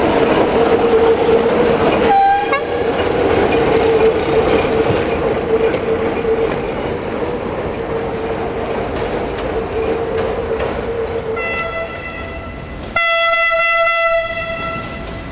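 An LDH1250 diesel-hydraulic shunting locomotive's engine running as it moves along, with a steady whine and a short squeal about two seconds in. Near the end a train horn sounds, loud for about a second.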